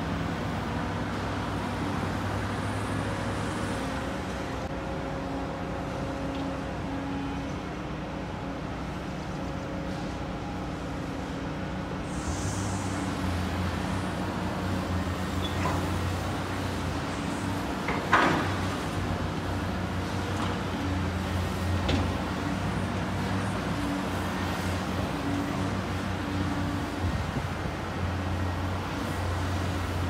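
Diesel engines of two tracked excavators running under load while they dig and swing, a steady low hum that grows louder about twelve seconds in. A sharp clank stands out about eighteen seconds in, with a few lighter knocks around it.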